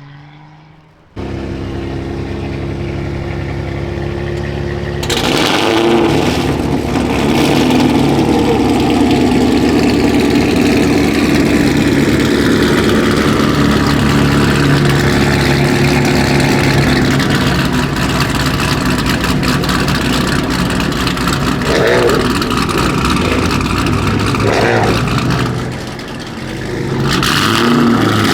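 A car engine runs loudly at a steady speed with no sharp revs. It starts suddenly about a second in, grows louder about five seconds in, and dips briefly near the end.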